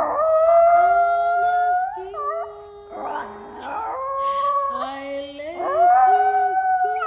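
Miniature pinscher howling along to a song: a few long, held howls, each sliding up at its start.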